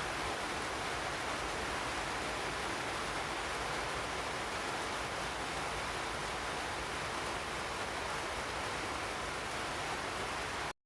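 Steady, even hiss of broadband noise, cutting out abruptly to silence for a split second near the end.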